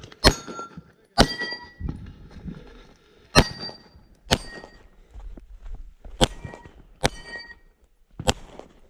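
BRN-180 rifle fired seven times at an uneven pace, about a second or two between shots. Most shots are followed by a short metallic ring.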